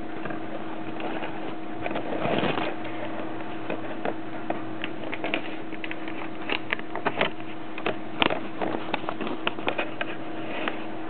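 Handling noise: scattered small clicks and rustles, a longer rustle a couple of seconds in and a denser run of clicks later, over a steady electrical hum and hiss.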